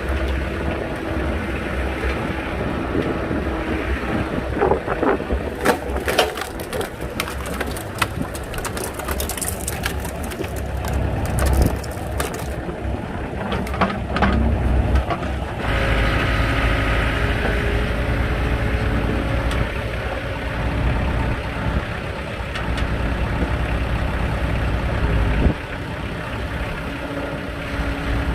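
Hydraulic log splitter driven by a running machine engine, splitting firewood. Through the middle, wood cracks and crunches sharply as the wedge forces logs apart. After that the engine runs louder under heavier load for several seconds, then drops back suddenly.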